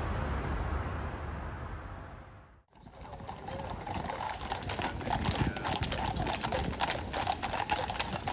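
A steady low rushing noise fades out and cuts off, then from about three seconds in many horses' hooves clip-clop on the road as a mounted column of cavalry horses walks past, the hoofbeats growing denser.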